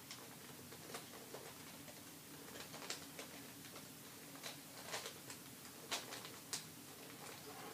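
Plastic QJ 3x3 puzzle cube being turned with the teeth: irregular, scattered clicks of its layers snapping round, a few sharper ones in the second half, over a faint steady hum.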